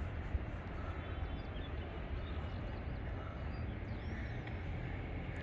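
Steady outdoor background noise with a low rumble, and a few faint high bird chirps here and there.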